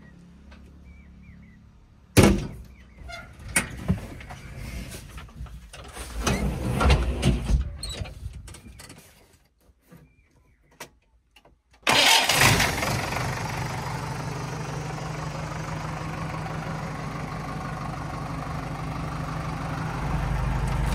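A sharp knock, then scattered knocks and clatter, then a short quiet gap. About twelve seconds in, a diesel vehicle engine starts suddenly and settles into a steady idle that grows a little louder near the end.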